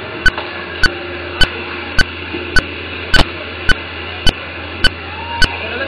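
Sharp clicks repeating evenly, a little under two a second, over a steady low hum.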